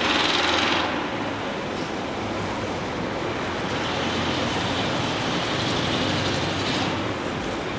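City street ambience: a steady wash of distant traffic and wind noise. There is a louder hiss in the first second and another swell of hiss from about four to seven seconds in, like a vehicle passing.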